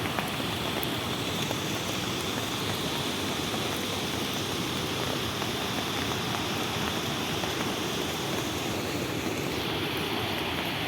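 Waterfall's falling water rushing with a steady, even roar.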